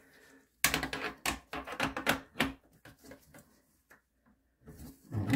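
A small metal wrench clicking and clacking on the braided hose's metal nut as it is fitted and tightened onto the bidet seat's water inlet. A quick run of sharp clicks comes in the first half, then a few lighter ticks.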